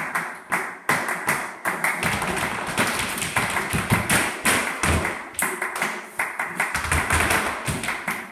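Flamenco zapateado footwork: dancers' shoes striking the floor in rapid, rhythmic flurries of taps and stamps, with flamenco guitar playing underneath.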